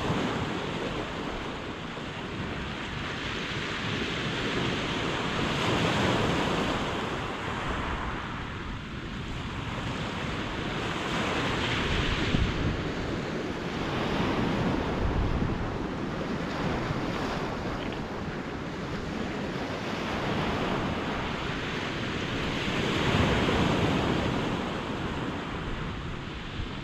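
Sea waves breaking and washing over a stony beach, the surf swelling and easing every few seconds, with wind gusting on the microphone.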